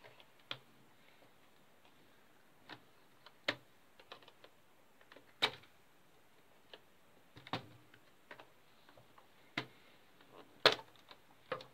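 Irregular sharp plastic clicks and snaps as the hinge cover strip of a Packard Bell EasyNote TJ75 laptop is pried and pulled loose from its clips, the loudest about halfway and near the end.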